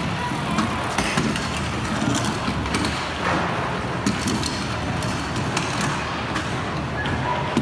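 Indoor skatepark ambience: a steady echoing rumble of skateboard, scooter and BMX wheels rolling on ramps, broken by frequent sharp clacks and knocks of boards and decks hitting the surfaces, with faint children's voices in the hall.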